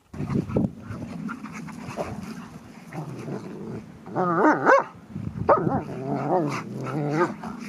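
Dogs (a husky and German shepherds) play-fighting, growling steadily with wavering, rising and falling play yowls. The loudest yowl comes about four seconds in, and shorter ones follow after five seconds.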